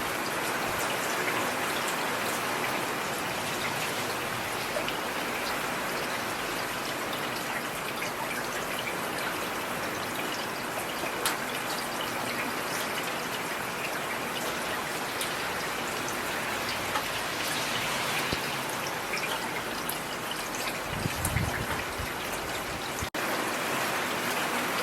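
Steady rain falling, an even hiss with many small drops pattering close by. A brief low rumble swells about 21 seconds in.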